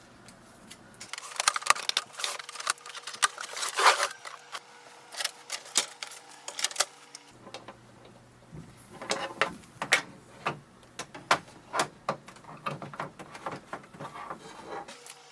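Packaging being handled while a new inkjet printer is unboxed: irregular rustling, scraping and clicking of cardboard and plastic wrap, in bursts with short pauses.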